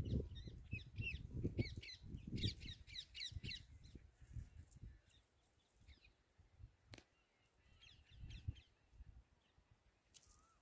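Birds calling in quick chattering runs of short, high calls: a burst in the first few seconds and a shorter one near 8 seconds. A low rumbling noise sits underneath for the first few seconds, and there is a single sharp click about 7 seconds in.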